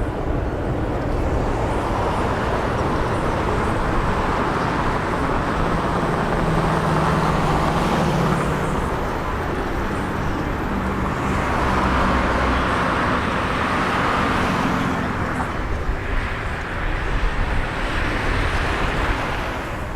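Strong wind gusting on the microphone: a continuous rumble and rushing hiss that swells and eases twice.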